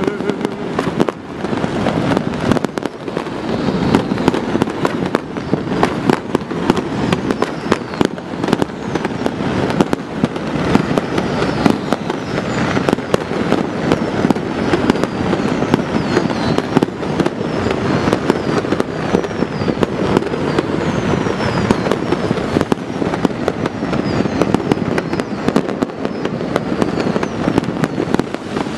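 Many fireworks and firecrackers going off at once across a city: a dense, unbroken barrage of bangs and crackles. Thin high whistles that fall in pitch cut through the barrage in the second half.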